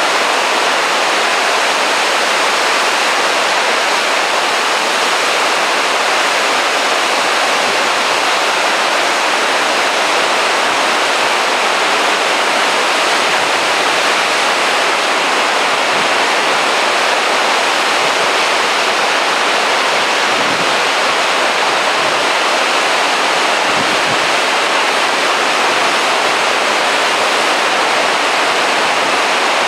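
Rough surf breaking and churning over a rocky shore below a cliff: a dense, steady rush of white water.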